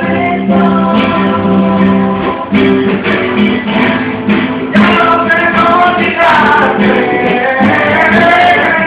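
Live acoustic guitar strummed in a steady rhythm, with a voice singing over it from about five seconds in.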